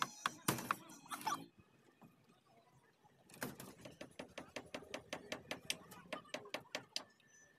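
Several sharp hammer knocks on the steel reinforcement mesh of a roof slab. After a short lull comes a run of quick light metallic clicks, about three or four a second, as PVC conduit and a fan box are fixed to the rebar.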